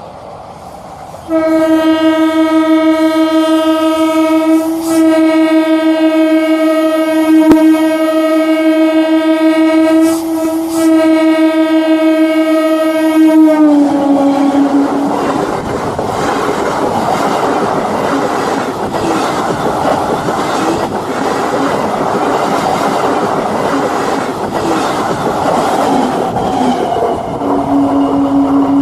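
Train horn sounded in one long blast of about twelve seconds, broken twice briefly, dropping in pitch as the train passes. The wagons then roll by, wheels clattering over rail joints, and the horn sounds again near the end.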